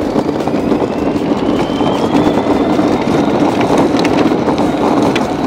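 24-volt electric Mario Kart ride-on driving: its electric motors give a thin whine that rises in pitch as the kart gathers speed and then holds steady, over the loud steady rumble of its wheels rolling on rough asphalt.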